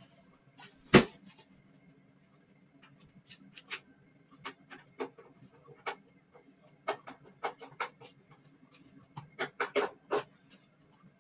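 Scattered clicks and taps over a steady low hum, with one loud knock about a second in and a cluster of sharper clicks near the end.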